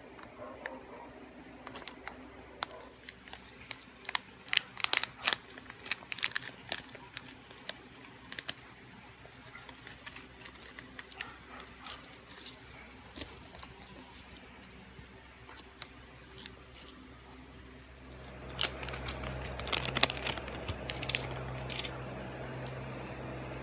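Handling noise from a foil pregnancy-test pouch: scattered clicks and crinkles, in clusters. A steady high-pitched whine runs behind them and stops about three-quarters through, where a low hum comes in.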